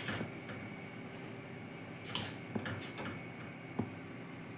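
Pot of kadha (water with leaves and spices) boiling on the stove: a quiet steady hiss with a few soft pops.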